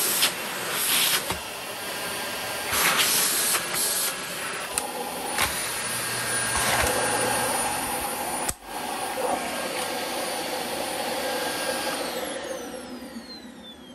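Dyson DC25 upright vacuum cleaner running and vacuuming, its motor and suction airflow a steady rushing whine with some surges. Near the end it is switched off and the motor winds down with a falling whine.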